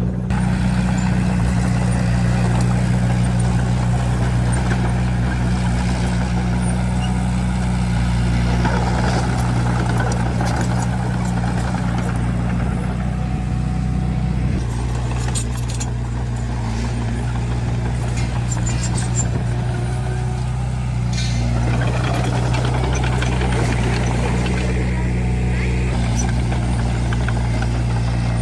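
Large diesel engine of heavy earthmoving equipment running steadily, its low hum changing slightly about halfway through.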